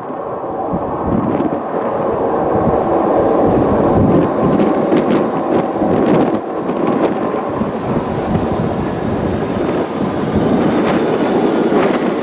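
London Underground S7 Stock District line train running past on the tracks below: a steady rumble of wheels on rail under a faint steady hum, with a scatter of clicks, most of them in the middle of the passage.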